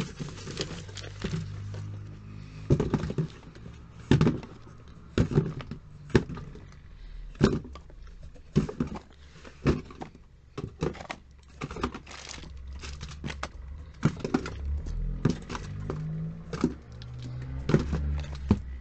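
Irregular clicks, knocks and light clatter of small plastic cosmetic tubes, jars and packaging being handled, picked up and set down on a table, a dozen or more sharp knocks over a low hum.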